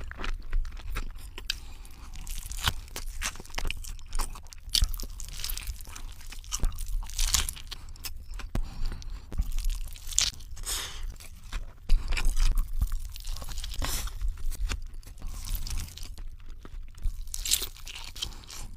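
Close-miked biting and chewing of a cheeseburger: mouth sounds with many short, sharp crackles.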